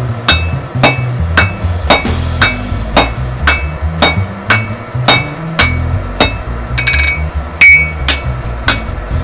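Hand hammer striking hot steel on an anvil in a steady rhythm of about two blows a second, each blow ringing briefly. Background music plays underneath.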